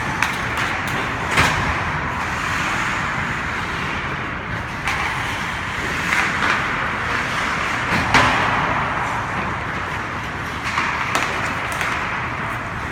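Hockey game play: a steady scraping hiss of skates with sharp knocks of sticks, puck and boards, the loudest about eight seconds in.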